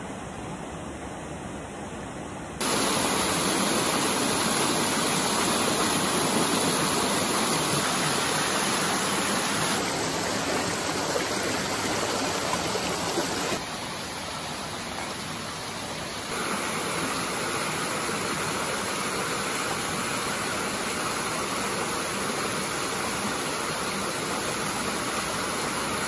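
Steady rushing of a shallow stream flowing over rocks, an even hiss of water that jumps abruptly up and down in level several times where the footage cuts between shots.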